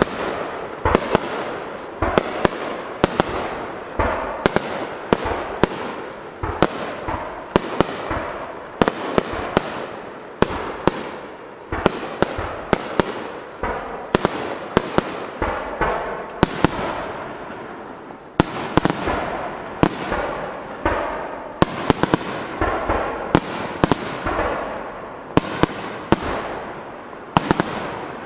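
Starmine fireworks barrage: aerial shells bursting in quick succession, sharp bangs several times a second, often in quick clusters, with the sound never dying away between them.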